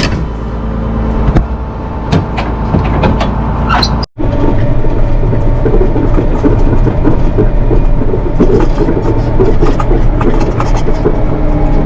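Tractor engine running steadily while a square hay baler works, with a clatter of small knocks and clicks from the baler's mechanism. The sound cuts out for an instant about four seconds in, then the same machinery carries on.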